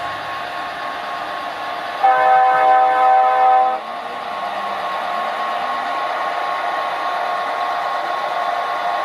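Walthers Amtrak Metroliner model train's DCC sound decoder playing electric-train running sounds, a steady hum with a high whine. About two seconds in, the horn sounds once for nearly two seconds, the loudest thing here, then the running sound carries on.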